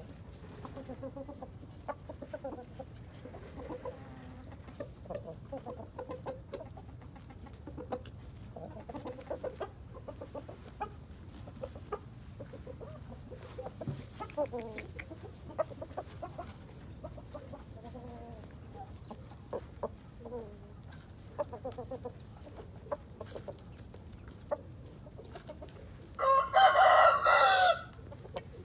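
Chickens clucking softly on and off, then near the end a rooster crows once, loud and drawn out for about a second and a half.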